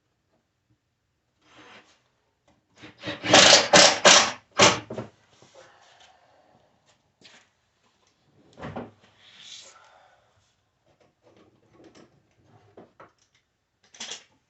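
Wooden drawers with pine faces being worked: a quick run of about five loud wooden knocks around three seconds in, another thump near nine seconds and a sharp knock near the end, with light rubbing and clicks between.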